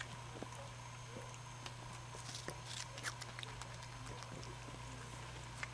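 Ring-tailed lemur eating a piece of fruit: scattered small wet smacks and clicks of chewing and licking, over a steady low hum.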